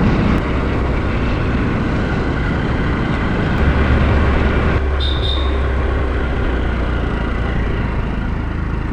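A vehicle on the move: steady engine and road noise with a heavy low rumble that swells for a couple of seconds midway.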